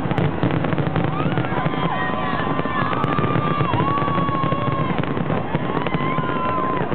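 Aerial fireworks bursting and crackling in a dense, continuous barrage, with several long whistling tones that rise, hold and fall over it.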